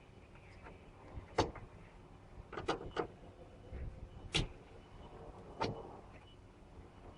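About six sharp, irregular clicks and knocks, the kind made by hand work on metal and plastic parts, with quiet between them.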